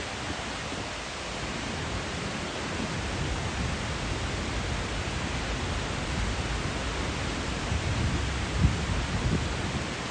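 Skógafoss waterfall's steady roar of falling water, an even rushing hiss. A few low gusts of wind buffet the microphone about eight to nine seconds in.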